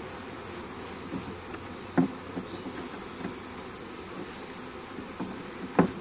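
A honey bee swarm buzzing steadily around a hive box and a bee-covered log, with a few knocks, two of them louder, about two seconds in and near the end.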